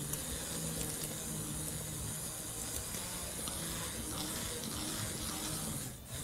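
Electric hand blender running, churning a liquid mixture in a pot: a steady whirring slosh that dips briefly near the end.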